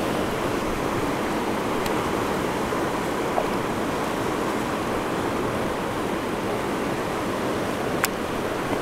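Steady rush of a fast river running through rapids. A single sharp click sounds near the end.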